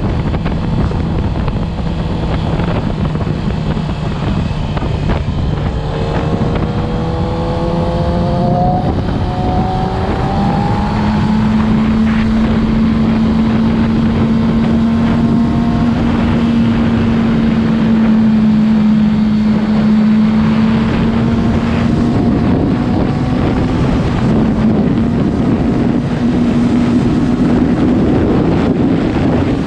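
Yamaha R6 2020 inline-four engine running, its pitch climbing between about six and ten seconds in and then holding steady at the higher pitch. The owner reports an abnormal sound from it once revved past 5000 rpm.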